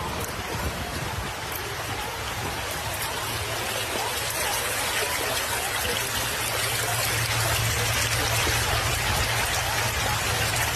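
Steady hiss of water, growing a little louder about halfway through, with a low steady hum underneath.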